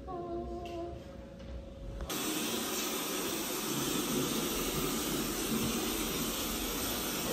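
Steady rushing hiss of a rainstorm soundscape played through speakers, starting abruptly about two seconds in. Before it, a faint short tone and quiet room noise.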